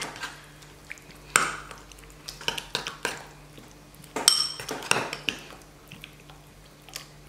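Small metal spoon stirring a thick spread in a ceramic bowl: scattered scrapes and clinks against the bowl, with one louder ringing clink about four seconds in. A faint steady hum runs underneath.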